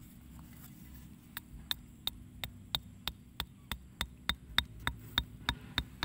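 Quick, light, evenly spaced taps of a small axe on a thin bamboo stake, driving it into the dirt, about three strikes a second, starting about a second and a half in.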